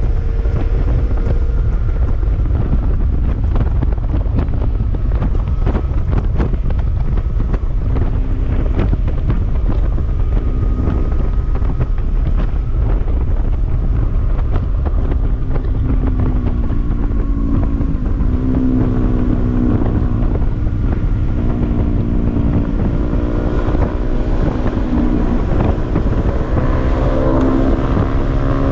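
Heavy wind noise on the microphone of a moving motorcycle, with motorcycle engines running beneath it. The engine pitch rises and falls with throttle and shifting, clearer in the second half.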